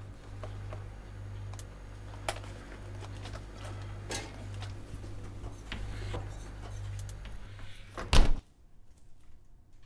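Rummaging in an open refrigerator, with clinks and knocks of jars and a carton being moved over a steady low hum. About eight seconds in the fridge door shuts with a loud thud, and the hum stops.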